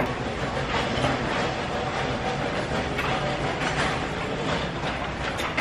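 Busy restaurant din: a steady mix of background noise with small scattered clinks and clatter of dishes and utensils.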